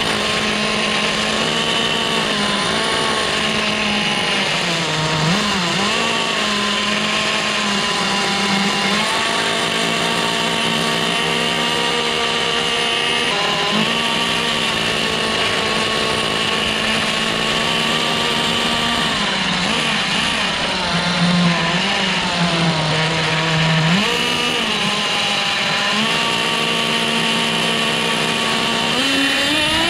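Thunder Tiger Pro-18BXS two-stroke nitro engine of a 1/10 RC monster truck running at a steady high pitch, sagging and picking up again a few times, then revving up sharply near the end. The engine is being run after five years of disuse.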